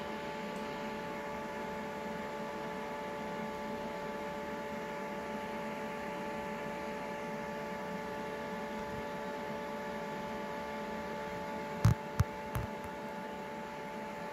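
A steady hum holding several even tones throughout. Three short sharp knocks come close together near the end.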